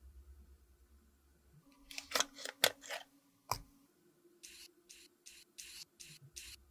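Lipstick cases handled: a quick run of sharp clicks about two seconds in and a single click near three and a half seconds, then a lipstick twisted up in its tube, making a series of short scraping strokes about three a second.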